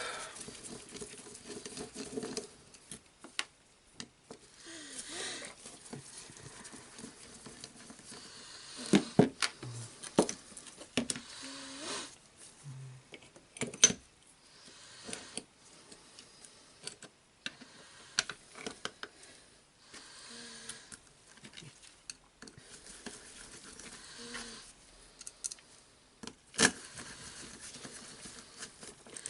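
Scattered clicks, taps and light knocks of small metal and plastic jigsaw parts being handled and fitted by hand, with faint rustling between them.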